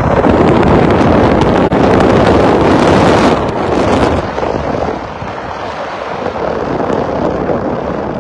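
Wind rushing over a phone's microphone in an open-top supercar as it accelerates hard, with the car's running noise mixed in. The noise is loudest for the first four seconds or so, then eases to a steadier, lower rush.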